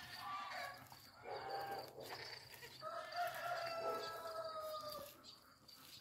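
An animal calling: a few short calls in the first two seconds, then one long, slightly falling call lasting about two seconds near the middle.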